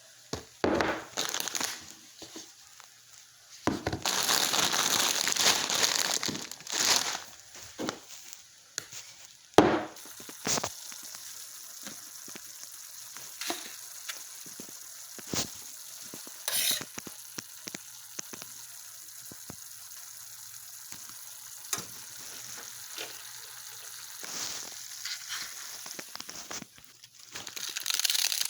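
Food frying in a pan: a steady sizzle with scattered crackles and pops. A few seconds of louder handling noise come near the start.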